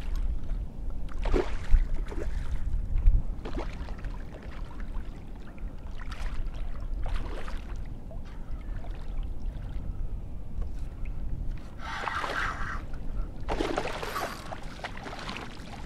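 Water splashing and trickling around a kayak in short bursts, the strongest a little before the end, over a steady low rumble with a couple of bumps in the first few seconds.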